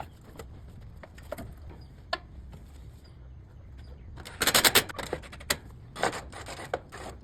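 Clinks and rattles of tools and metal parts being handled while fitting a replacement fan motor in an AC unit: scattered single clicks, then a burst of rapid rattling a little past halfway and a shorter one near the end.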